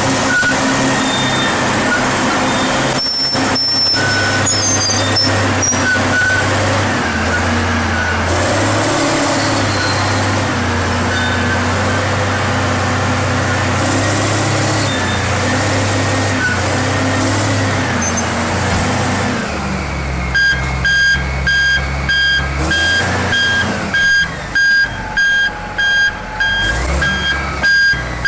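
Heavy construction machine's engine running steadily under load. About two-thirds of the way through, a backup alarm starts, beeping repeatedly about one and a half times a second.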